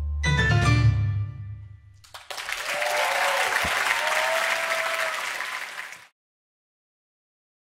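A big band sounds a final chord that rings and fades out over about two seconds. The audience then applauds for about three and a half seconds, and the applause cuts off abruptly into silence.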